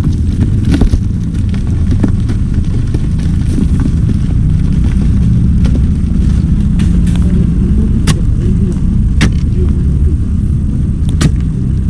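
Heavy diesel machinery running steadily with a loud low drone, with a few sharp knocks about eight, nine and eleven seconds in.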